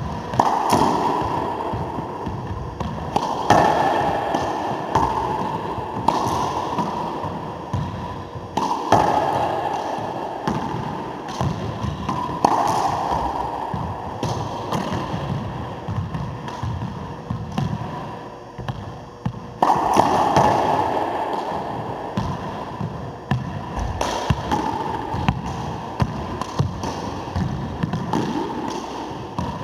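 Racquetball hits: the ball is struck with a racquet and smacks off the walls and floor of an enclosed court. Each hit echoes, and the loudest come every few seconds.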